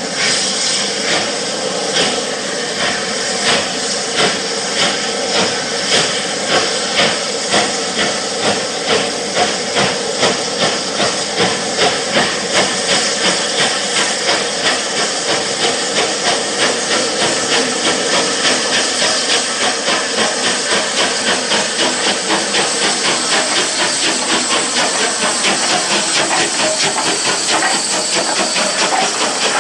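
Rebuilt Bulleid West Country class steam locomotive 34027 Taw Valley's three-cylinder exhaust beating under steam with a steady hiss. The beats quicken steadily from a little over one a second to about three a second as the engine gathers speed.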